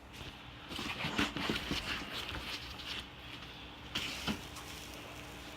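Packaging in a 3D-printer kit box being handled as the top piece is lifted out: rustling and scraping, with small clicks and a knock about four seconds in.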